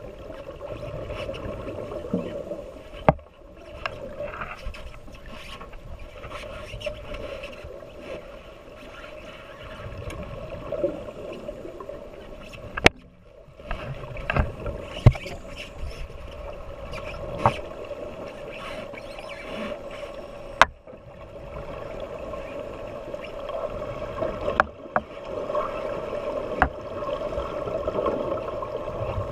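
Underwater sound picked up inside a shark-diving cage: a steady hum of boat machinery carried through the water, broken by sharp knocks about eight times.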